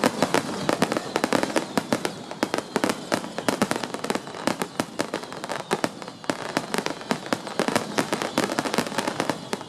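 Fireworks display: a dense, continuous crackle of many small rapid bursts, sharp pops coming several times a second.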